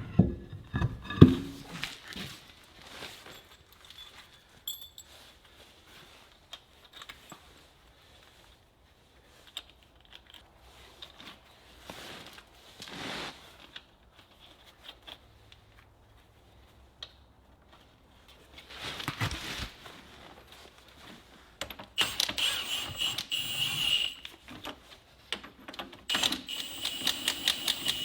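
Lug nuts being put on a wheel loader's wheel studs with scattered metal clinks and knocks, then a socket ratchet clicking fast in two spells near the end as the nuts are run down tight.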